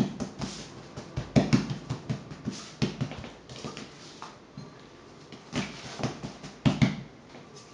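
Hands patting and pressing a round of yeasted batbout dough flat on a hard board, giving a string of dull, irregular pats and thumps, the strongest about a second and a half in and again near the end.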